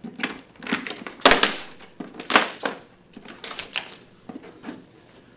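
Gloved hands working the end cap off a cardboard shipping tube: a run of short scraping, crunching rasps of cardboard and cap, the loudest about a second in.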